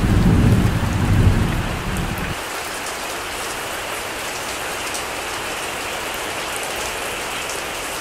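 Steady heavy rain hissing evenly, with a low rumble of thunder that dies away about two seconds in.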